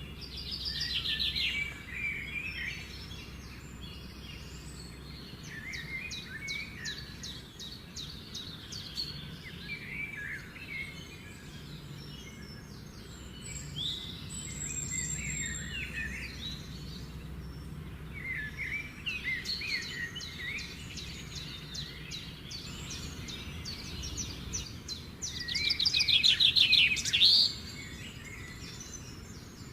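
Songbirds chirping and singing: bursts of quick chirps and rapid trills, with a louder run of trills near the end.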